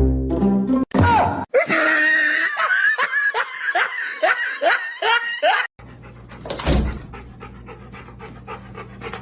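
A dog giving a rapid run of short yelps, about two or three a second, each falling in pitch. After a sudden cut, a quieter low steady hum.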